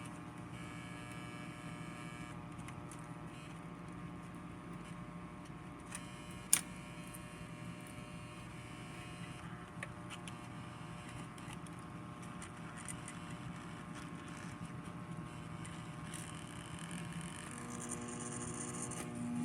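Steady electrical hum and buzz from a vintage alarm clock's speaker, with a sharp click about six and a half seconds in.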